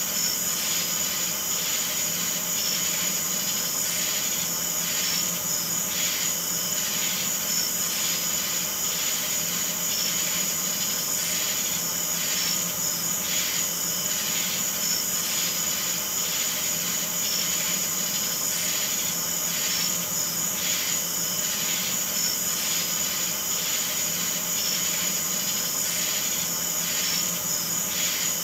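A steady hiss and hum with high whining tones and a soft pulse repeating about every two-thirds of a second.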